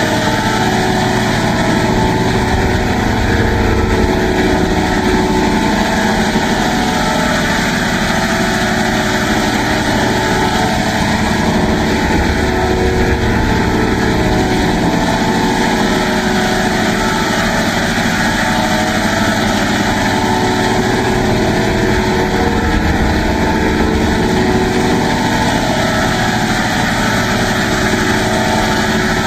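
Loud, steady, dense buzzing drone of an electronically processed effect sound, its tone slowly sweeping up and down throughout.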